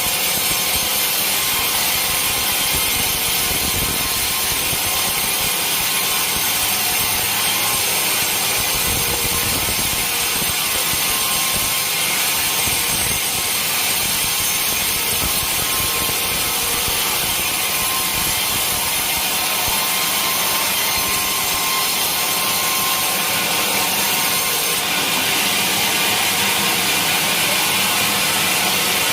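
Sawmill saw cutting lengthwise through a large teak log: a steady, unbroken high-pitched rasp.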